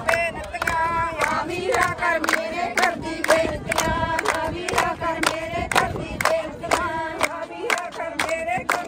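A group of women singing Punjabi boliyan together for giddha, over a steady hand-clapping beat of about two claps a second.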